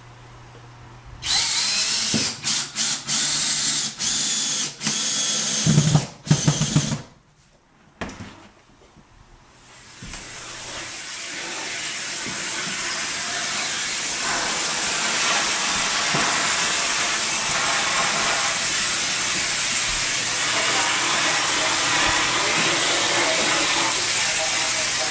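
Cordless drill driving screws into a wooden hearth frame in a run of short start-stop bursts. About ten seconds in, a vacuum cleaner starts, its steady suction noise rising and then holding to the end.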